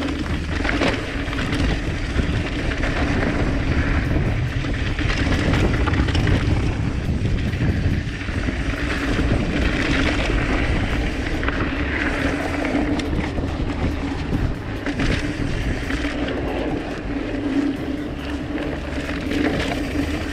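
Mountain bike riding down rough singletrack: tyres rolling over dirt and rock, with the bike rattling and wind on the chest-mounted GoPro's microphone.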